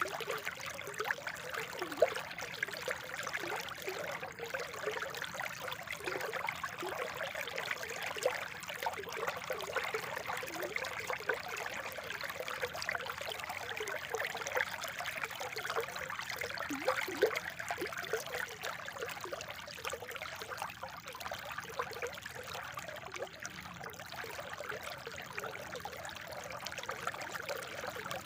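Spring water trickling and burbling steadily over stones, with many small gurgles.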